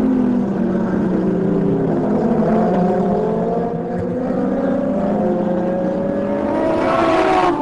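Superbike racing motorcycles running hard in a group, with several engine notes at once. Their pitch falls over the first couple of seconds, then climbs as they accelerate, getting loudest near the end as the bikes pass close.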